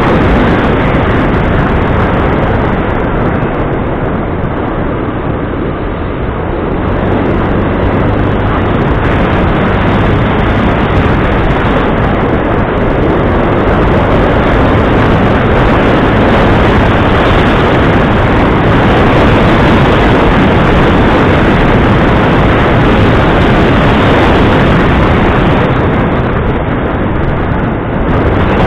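A loud, steady engine running under a heavy rushing noise.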